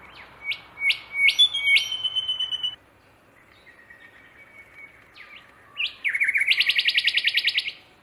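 A small songbird singing: a few sharp rising notes and a held whistle, then a pause, two more rising notes and a fast, even trill of about a dozen notes a second that ends shortly before the close.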